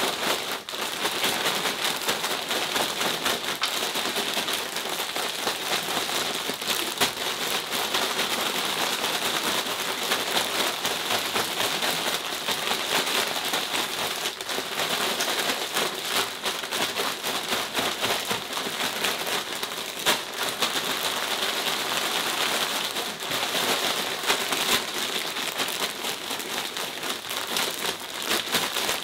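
Plastic grow bag crinkling as it is kneaded and tumbled, with the straw pellets and grain spawn inside shifting and rustling: mixing the spawn through the substrate. A dense, steady crackle throughout.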